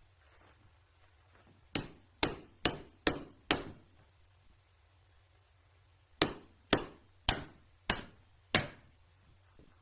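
Ten sharp knocks in two runs of five, about two a second, each with a short ringing tail.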